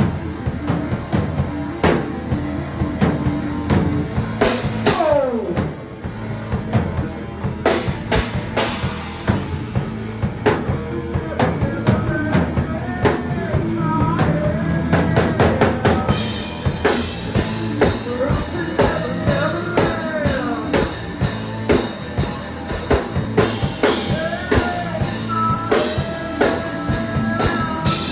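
Rock music with a driving drum kit, a bass drum and snare beating steadily under a bending lead guitar line.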